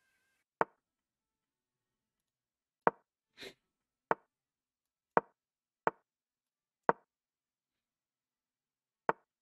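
Online chess board's move sound effects: seven short wooden knocks at uneven intervals, one for each piece moved, with a fainter, duller sound between the second and third.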